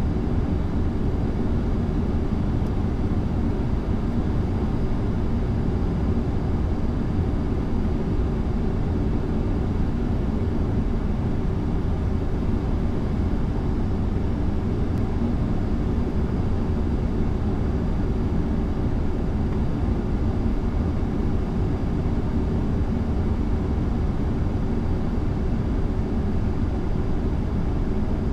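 Steady low rumble of airflow and engines heard inside the flight deck of an Airbus A340-300 on approach, unchanging throughout, with a faint high steady whine above it.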